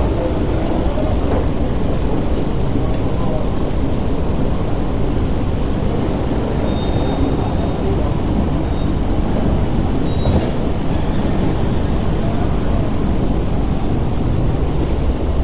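Steady low rumble of a Star Ferry's engines running while the boat lies alongside the pier.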